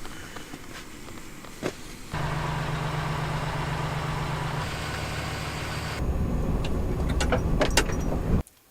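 A vehicle's engine running steadily, coming in suddenly about two seconds in after a few light clicks, shifting in tone twice and cutting off abruptly near the end.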